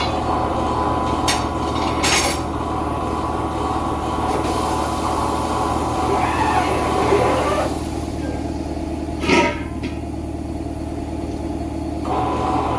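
Steady machine hum with sharp knocks: two about a second and two seconds in, and a louder one a little past nine seconds.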